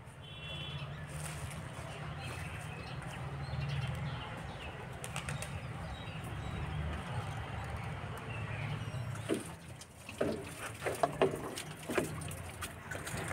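Outdoor ambience with birds calling, including a short high chirp about half a second in. From about nine seconds on come a series of sharp knocks and clicks.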